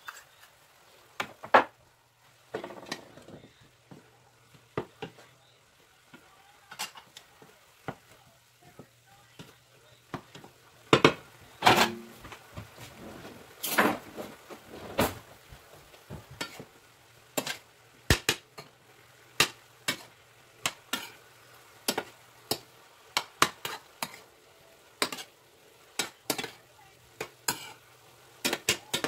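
Cooking utensils knocking and scraping against a frying pan as diced eggplant and chicken are stirred, with a faint sizzle from the pan. The knocks come irregularly, at times several a second, and are loudest in a cluster about halfway through.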